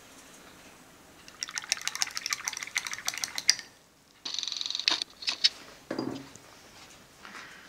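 Paintbrush being swished in a glass of rinse water, clicking and rattling quickly against the glass in two runs with a brief pause between them, followed by a few sharp taps and a soft knock about six seconds in.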